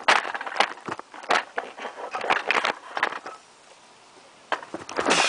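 Camera and clothing scraping, rubbing and knocking against granite as a man squeezes through a narrow rock crevice: irregular scuffs and bumps, a quieter spell about three and a half seconds in, then a dense burst of rubbing near the end.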